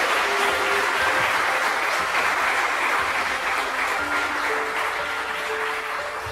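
Congregation applauding, the clapping fading toward the end, with soft background music of plucked notes underneath.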